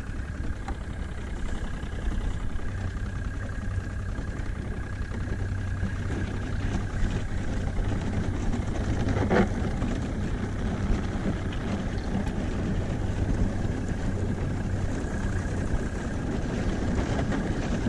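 Boat motor running steadily with a low hum, with one sharp knock about nine seconds in.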